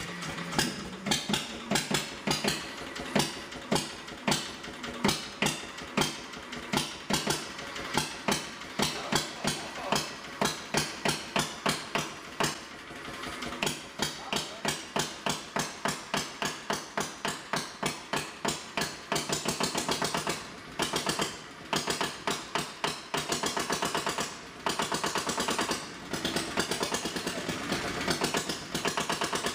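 1930s Onan single-cylinder diesel generator set running on its own after a cold start: a slow, even chug of about two firing beats a second that quickens over the first twenty seconds, then turns into a faster, denser run broken by a few short dips.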